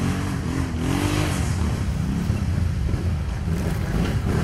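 Quad bike (ATV) engines running and revving under load on a steep muddy climb, the revs rising and falling.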